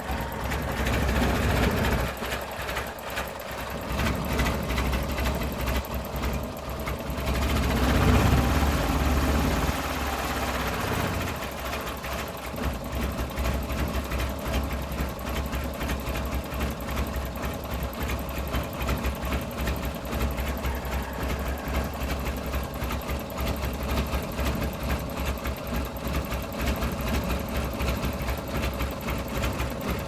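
Suzuki F6A three-cylinder engine running roughly while still cold after a hard morning start. It surges and sags several times in the first ten seconds or so, then settles into an uneven, lumpy idle.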